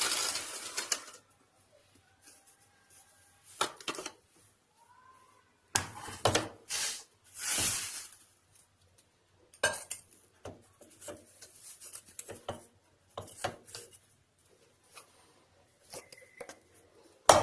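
Electric mixer grinder motor winding down and stopping in the first second. After it come scattered clinks and knocks of kitchen dishes and utensils being handled, the loudest a few seconds in.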